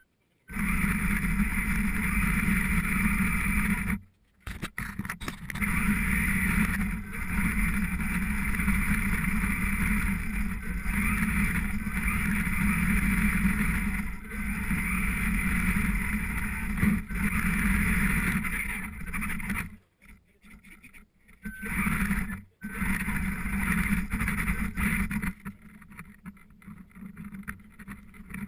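Traxxas Slash 2WD RC truck heard from a camera mounted on its body, its electric motor and drivetrain running steadily as it drives over gravel and dirt. The sound cuts out abruptly a few times and goes quieter near the end.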